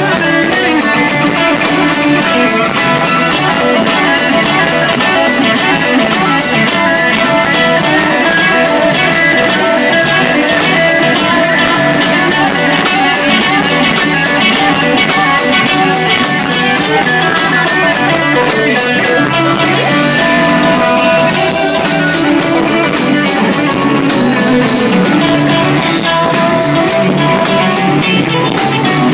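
Live rock band playing a guitar-heavy passage: two electric guitars over a drum kit with steady cymbal hits, at an even loudness throughout.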